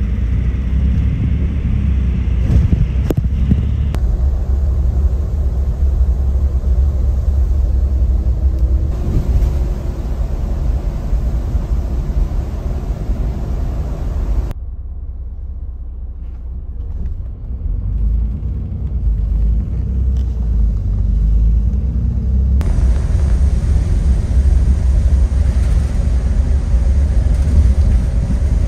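Steady low rumble of a coach bus's engine and tyres on a wet road, heard from inside the cabin. About halfway through the sound drops abruptly to a quieter, duller rumble, then jumps back up to full level about eight seconds later.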